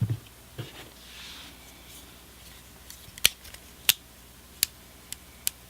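Guidesman Catalyst multi-tool's spring-loaded pliers being worked open and shut. Faint handling at first, then a string of sharp metal clicks from about three seconds in, roughly one every half second, with no spring rattle.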